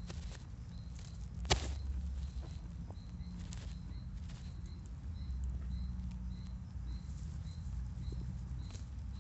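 Horse's stomach growling: a low rumble that swells louder twice, with a single sharp click about a second and a half in.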